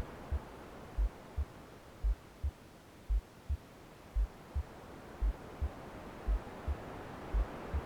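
A heartbeat recording: soft low lub-dub double thumps, about one pair a second (roughly 56 a minute), steady and even. They sit over a bed of white noise that dims slightly in the middle and swells again toward the end.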